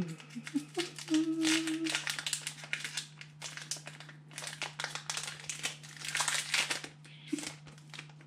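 Foil wrapper of a Pokémon TCG booster pack being torn open and handled, giving a dense run of crinkles and crackles over a steady low hum.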